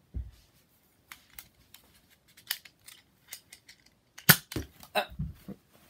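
Small plastic clicks and taps from handling a toy foam-dart blaster, then one sharp, loud snap about four seconds in, followed by a few softer knocks and a dull thump.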